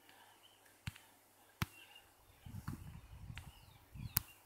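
Faint room noise with a few sharp clicks, like taps on a tablet screen: one about a second in, another shortly after, and a louder one near the end. A faint low rumble runs through the second half, with faint short high chirps in the background.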